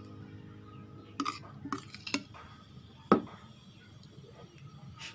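A spoon stirring thick mung bean porridge in a bowl, with a handful of sharp knocks of the spoon against the bowl, the loudest about three seconds in.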